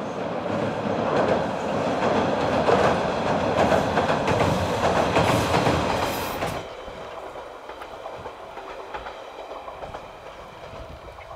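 Diesel railcar passing close by, its wheels clattering over the rail joints; the noise drops away sharply about two-thirds through and stays much fainter.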